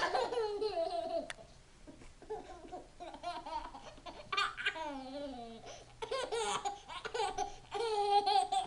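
A baby laughing in repeated bursts of giggles as a pug licks and nuzzles at it. The laughter is loudest at the start and again near the end.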